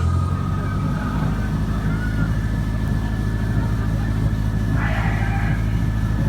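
The ride boat's motor running with a steady low hum, with a faint steady whine above it and a brief burst of noise about five seconds in.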